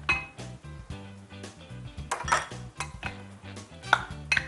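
Glass bowls clinking and a spatula knocking against a glass dish as sliced banana is tipped into chopped fruit and mixed: several sharp clinks, the loudest near the end, over background music with a steady beat.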